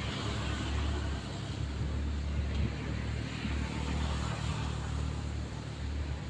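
Mini excavator's diesel engine running steadily under load, a low rumble heard from a distance.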